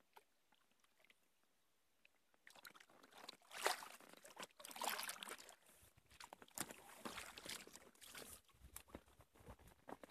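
Kayak paddling on a river: irregular water splashes and sloshing from the paddle and hull, starting a couple of seconds in after near silence, with louder splashes around a third and a half of the way through.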